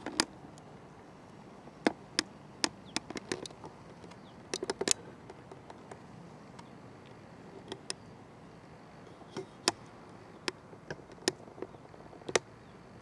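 Irregular sharp clicks and taps, about twenty of them with a quick cluster near the middle, over a faint steady low hum.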